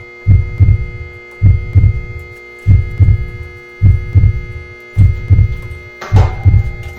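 Background music: a deep two-beat bass thump repeating about once a second over sustained held tones. A brighter hissing layer joins near the end.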